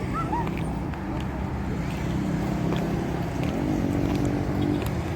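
A motor vehicle's engine running steadily, its pitch rising a little past halfway as it speeds up.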